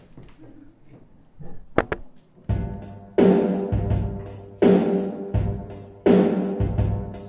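Faint room noise with a couple of sharp clicks, then about two and a half seconds in live music starts. Full chords are struck about every second and a half, each ringing and fading, over a heavy low bass.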